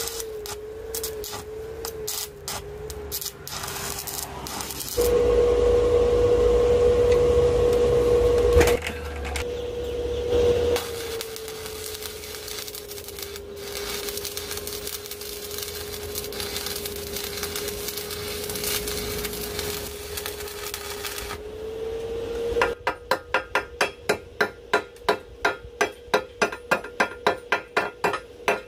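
Arc welding on steel: the arc crackles loudly for a few seconds, with shorter spells around it, over a steady hum. Near the end a hammer strikes the steel in an even run of sharp knocks, about three a second.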